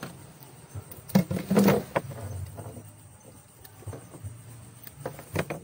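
Several short knocks and slaps in a boat's fish hold, the loudest cluster about a second and a half in and a few more near the end, over a low steady rumble.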